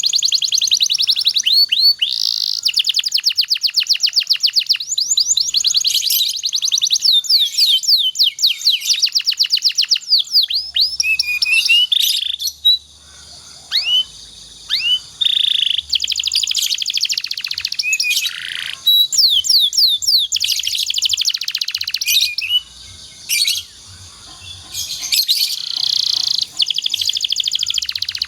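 Domestic canary singing: long rapid rolling trills and quick repeated downward-sweeping notes, with a couple of brief pauses.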